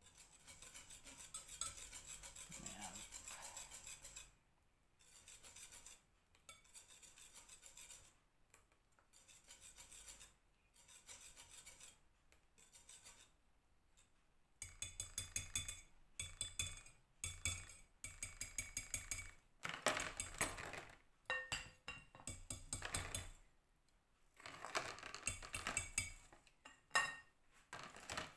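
Wire balloon whisk beating a runny batter in a glass mixing bowl: wet scraping strokes in spells with short pauses, turning in the second half to quick runs of clicks as the wires strike the glass.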